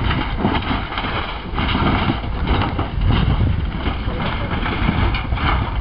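Heavy wind buffeting the microphone, with irregular crashes and scraping from a gutted Volkswagen Beetle body tumbling over rocks down a slope.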